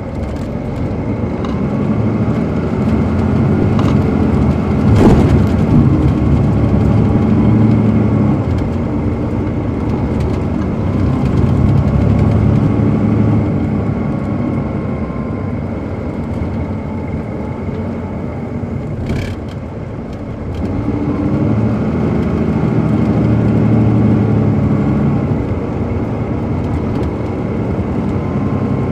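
The Caterpillar C13 ACERT diesel of a 2007 MCI D4500CL coach, heard from on board, pulling hard twice with a lull between as the bus eases off. A sharp knock comes about five seconds in.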